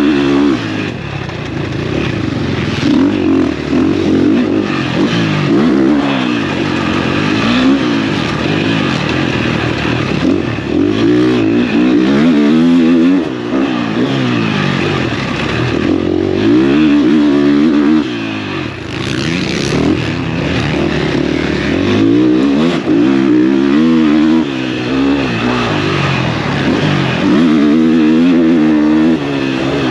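Husqvarna motocross race bike's engine revving hard and backing off again and again, its pitch climbing and dropping every two to three seconds as it is ridden around a motocross track.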